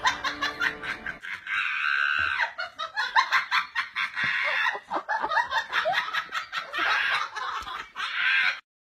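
A person laughing hard in quick, repeated bursts; the sound cuts off abruptly near the end.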